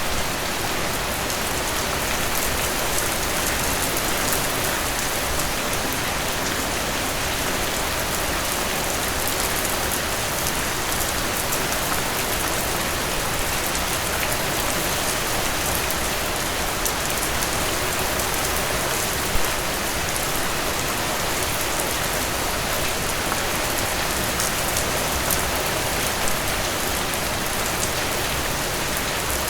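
Steady rain falling and pattering on surfaces, an even hiss with fine drop ticks, and one brief louder patter about 19 seconds in.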